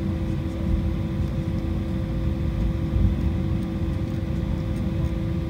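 Cabin noise of an Embraer 190 taxiing, heard inside the cabin: its GE CF34-10E turbofan engines at taxi power make a steady drone over a low rumble, with a couple of steady hums.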